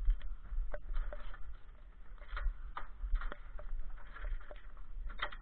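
Irregular taps and clicks of raindrops striking the camera's protective cover, over a steady low rumble.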